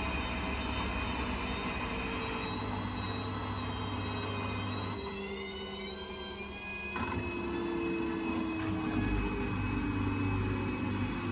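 A Samsung front-loading washing machine winds down from a 1400 rpm spin with the drum balanced. The motor's whine slowly falls in pitch as the drum coasts down, over a steady low hum. About halfway through, the whine briefly thins out, then returns.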